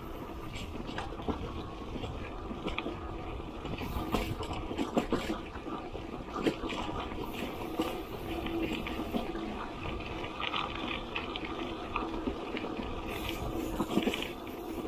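Bicycle rolling along a rough dirt road: a steady rushing noise with frequent small rattles and knocks from the bike and its front wire basket.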